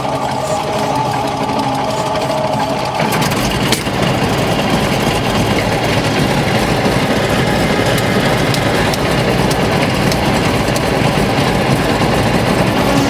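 Airplane engine running steadily, then turning suddenly louder and rougher about three seconds in and holding there.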